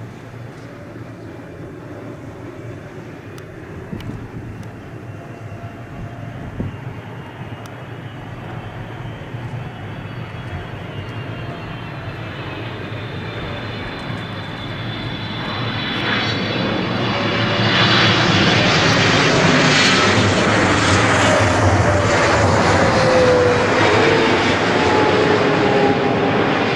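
Boeing 777's twin turbofan engines on final approach: a jet rumble with a high fan whine that grows steadily louder, reaching full loudness about two-thirds of the way in as the airliner passes close by. Near the end, lower tones in the sound slide down in pitch as it goes past.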